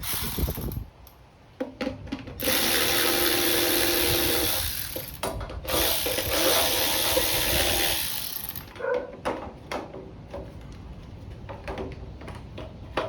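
A hand-held power tool running in two steady spells of about three seconds each, with a short break between, taking off fasteners to get at the generator's air filter and carburetor. Small handling clicks and knocks come before and after.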